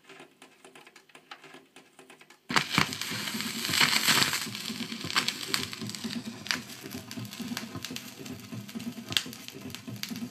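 Surface noise of an old vinyl record in the lead-in groove: crackle and sharp pops, faint at first, then suddenly much louder about two and a half seconds in.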